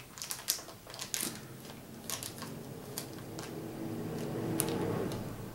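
Small clicks and crinkles of a cardboard card pack's wrapping being handled and pulled open, with a low steady hum swelling near the end.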